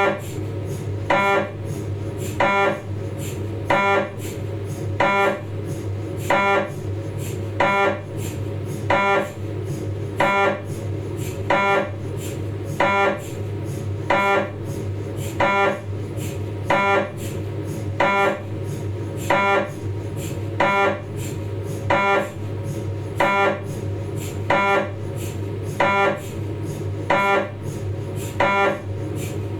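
Philips 1.5 T MRI scanner's gradient coils running a 3D T2-weighted sagittal spine sequence: a short, pitched, buzzing beep repeating evenly about every 1.3 seconds, over a steady low hum.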